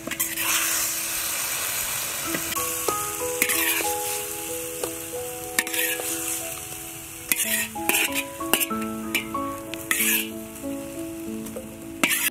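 Oil sizzling in a steel wok while a metal ladle scrapes and clinks against the pan several times. Background music with held notes runs underneath.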